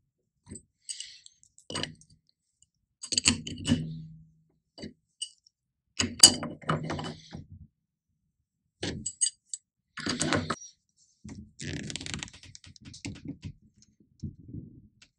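Adjustable wrench clinking and clanking against a shock's cylinder cap in short, irregular strokes as the cap is screwed down tight, some knocks with a brief metallic ring.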